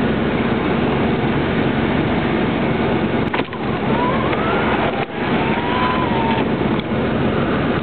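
Steady rushing noise with a low hum inside a car's cabin. A faint thin tone glides up about four seconds in and holds for a couple of seconds.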